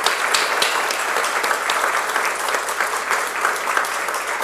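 Audience applauding, many hands clapping in a steady, even patter.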